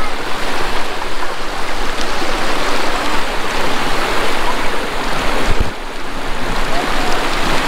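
Shallow stream water rushing and splashing over flat rock in a small cascade, loud and close to the microphone. A brief low bump comes about two-thirds of the way through.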